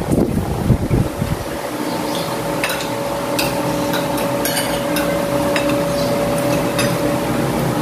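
Spoons and forks clinking and scraping against plates during a meal, several short sharp clinks at irregular intervals over a steady hum.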